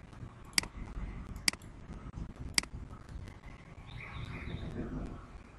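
Three sharp computer mouse clicks about a second apart, over a low steady background noise.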